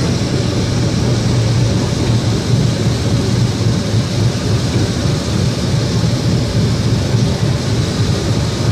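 Tram running along its rails, heard from inside the car: a steady, loud low rumble of wheels and motor.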